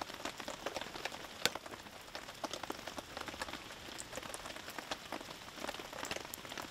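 Rain pattering steadily, many small drops ticking irregularly, with one sharper tap about a second and a half in.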